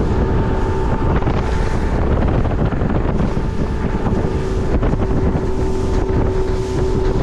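Outboard motor of a fishing boat running at speed, a steady engine whine over heavy wind buffeting on the microphone.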